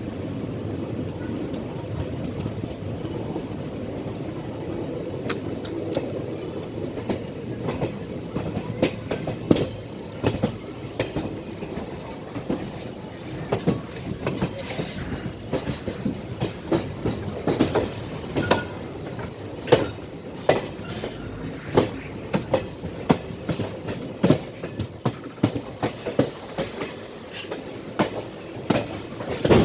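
Passenger train's wheels running on the track: a steady low rumble, then from about seven seconds in, many sharp, irregular wheel clacks on the rails.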